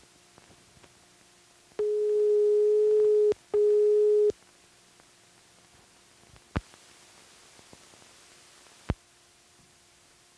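Steady single-pitched tone of about 400 Hz on the film's end-leader soundtrack, sounding in two bursts: about a second and a half, a short gap, then just under a second. A few seconds later come two sharp clicks a little over two seconds apart, with a faint hiss between them.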